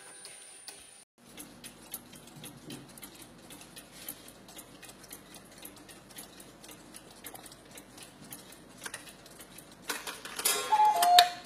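Mechanical Black Forest cuckoo clock ticking quickly and unevenly. Near the end the strike mechanism clatters and the clock sounds one cuckoo call, two notes with the second lower, the loudest sound here. A music-box tune fades out at the very start.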